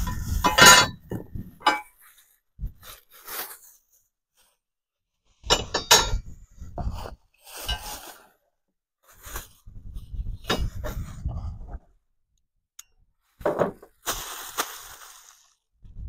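Metal running-board mounting brackets clinking and knocking together as they are handled and set down, in several separate spells, with scraping and rustling in between.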